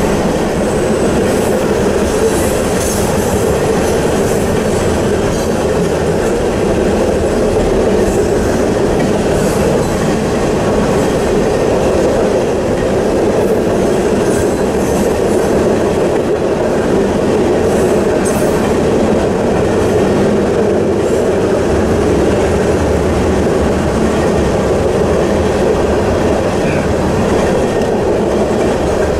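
Norfolk Southern freight train's cars rolling steadily past over a road grade crossing: a continuous loud noise of steel wheels on the rails.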